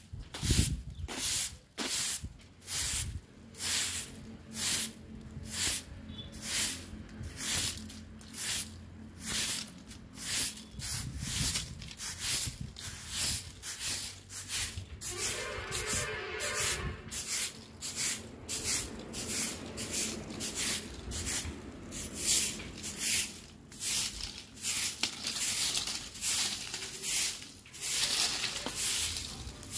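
Straw broom sweeping dry mango leaves and small fallen mangoes across a concrete yard: brisk, regular swishes, a little over one stroke a second.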